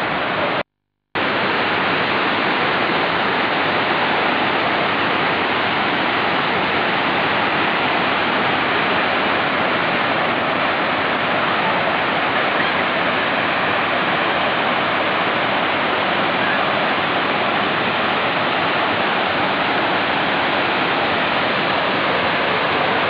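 Steady rush of water pouring over artificial rock cascades into pools, with a brief dropout about a second in.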